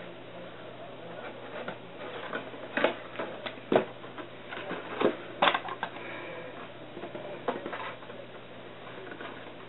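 Cardboard box and its contents being handled: rustling with scattered sharp taps and clicks, the loudest between about three and six seconds in.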